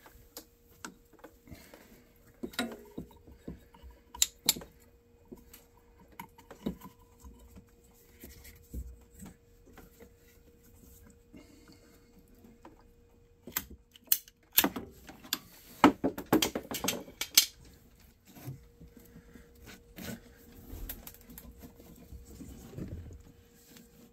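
Scattered clicks, clinks and knocks of hands working hose clamps and a coolant hose while a heater T is spliced into the line. The handling is busiest about two-thirds of the way in, over a faint steady hum.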